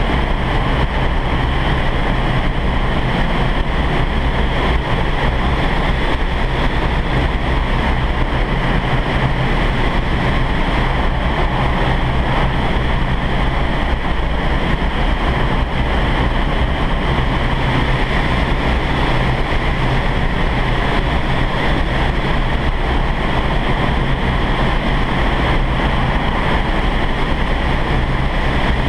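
Steady rush of air through a vertical wind tunnel's flight chamber, the airflow that holds the body-flyers up.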